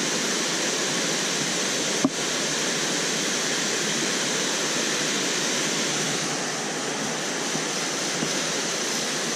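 Steady rush of water pouring over a low concrete dam spillway, an even, unbroken noise.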